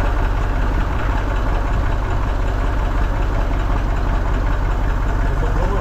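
Diesel tractor engine idling steadily, with an even rapid pulse.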